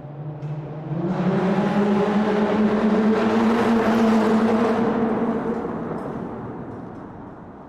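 Car engine and tyre noise in a road tunnel. The engine note steps up about a second in as the sound swells, then the sound fades away steadily through the second half.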